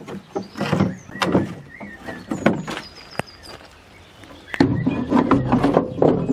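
Sheet-steel ride-on mower deck shells being handled: knocks, clatters and scraping of metal. Denser and louder scraping with a low rough grind starts about two thirds of the way through.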